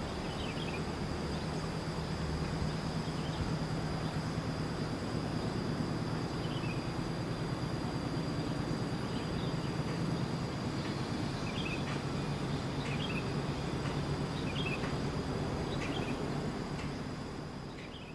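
Rural outdoor ambience: a steady high insect drone with scattered short chirps over a low steady hum, fading out near the end.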